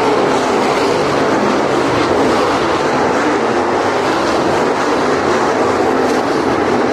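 A field of dirt late model race cars running at speed around a dirt oval, their V8 engines blending into one loud, steady drone with no single engine standing out.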